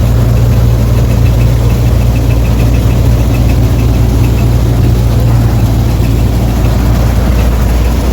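Combine harvester running, a loud steady engine drone with a strong low hum; a faint quick ticking rides over it for a couple of seconds about a second in.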